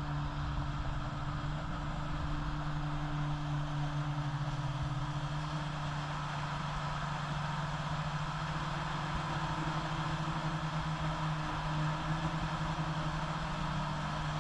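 Jet ski engine running steadily at a constant pitch, with a steady rush of noise over it.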